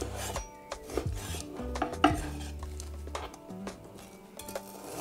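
Chinese cleaver (cai dao) slicing a fish fillet, the blade knocking on a wooden cutting board several times at uneven intervals.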